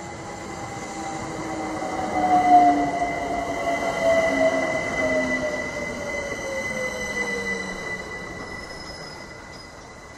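London Overground Class 378 electric train pulling into the platform and slowing to a stop: its motors whine in a falling pitch as it slows, over a steady high squeal. Loudest a few seconds in, then dying away as it halts.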